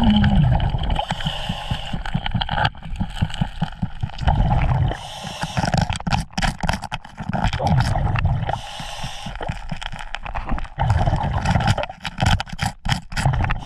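Heard underwater: a thin metal hand tool scraping and clicking against bedrock as it probes a crack, with rushing, gurgling water and bubbles that swell and fade every few seconds.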